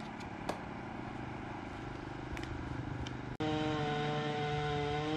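A small engine, in the manner of a motorbike, running steadily under faint clicks. About three and a half seconds in, the sound breaks off abruptly and comes back louder as a steady engine hum that sags slightly in pitch near the end.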